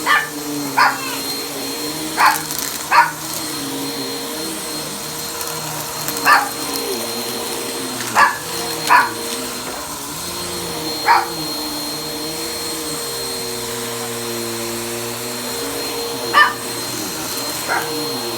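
Upright vacuum cleaner running steadily on carpet, its hum wavering up and down in pitch as it is pushed back and forth. A dog barks at it, about ten single barks spread irregularly through the stretch.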